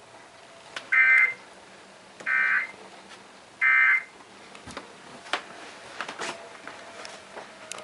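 Emergency Alert System end-of-message tones: three short bursts of harsh digital data screech, about a second and a bit apart, marking the end of the tornado warning broadcast. A few faint clicks follow.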